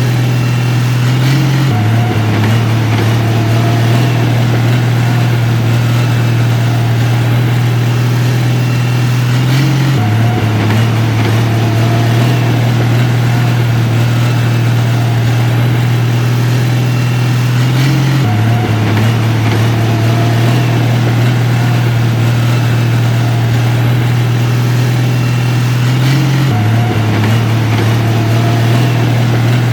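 Heavy diesel engine of earth-moving equipment running steadily with a deep hum, its pitch stepping briefly about every eight seconds.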